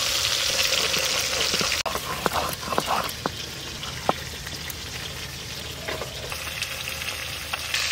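Pieces of carp frying in mustard oil in a wok, a steady loud sizzle. After a sudden cut about two seconds in, a quieter gritty hiss with a few sharp clicks, from spices being worked on a stone grinding slab.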